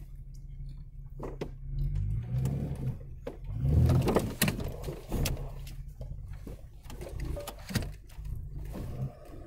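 A 4x4's engine running with a low rumble, under frequent knocks and rattles that are loudest about four seconds in.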